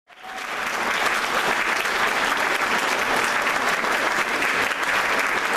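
Congregation applauding, a steady patter of many hands that fades in from silence in the first half second.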